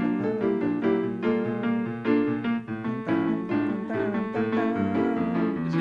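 Instrumental music led by a piano-sounding keyboard, chords struck in a steady, bouncy rhythm with no singing.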